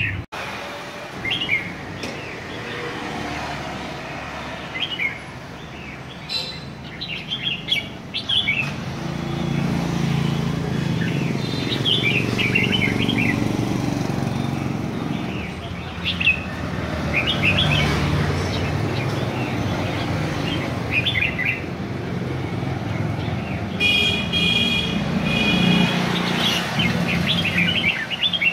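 Red-whiskered bulbuls singing in their cages: short, sharp, chirpy phrases repeated again and again. A low traffic rumble runs underneath from about a third of the way in.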